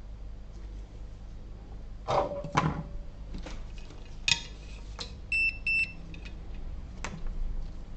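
Several sharp clicks and knocks of things being handled on an electronics workbench, then two short high electronic beeps a little past the middle.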